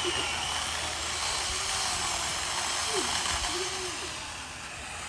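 Chainsaw cutting into a tree trunk, a steady hissing buzz that grows quieter about four seconds in.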